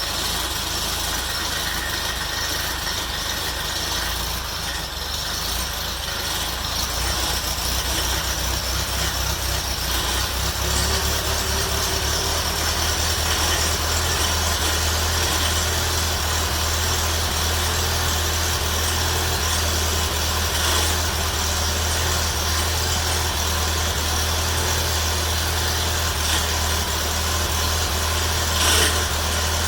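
1948 Farmall Cub's freshly rebuilt four-cylinder flathead engine on its first start, with an even low pulse that grows louder and steadier from about ten seconds in. A single sharp click sounds near the end.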